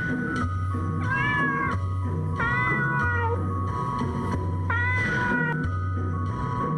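House cat meowing three times, long drawn-out calls that rise and then fall in pitch, over background music with a steady low bass.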